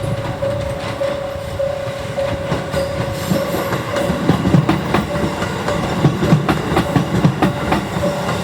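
Station level-crossing warning bell ringing about twice a second as a JR Central 373 series electric train passes, its wheels clacking over rail joints. The clacks grow louder about four seconds in, and the bell fades under them.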